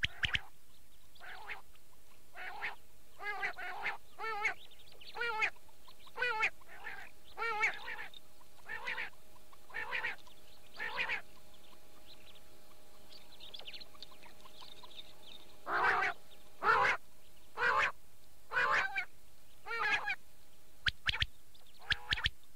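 Recorded quail calls played back from a cassette tape: short, harsh, wavering calls repeated about once or twice a second. The calling drops to a quieter patter for a few seconds in the middle, then comes back louder, over a faint steady hum.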